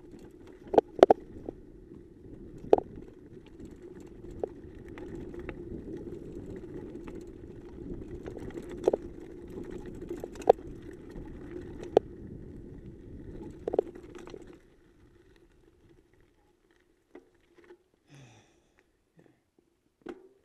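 Mountain bike rolling fast over a rocky dirt trail: a steady tyre rumble broken every second or two by sharp clatters as the bike hits bumps. About fifteen seconds in it drops away to near quiet as the bike comes to a stop.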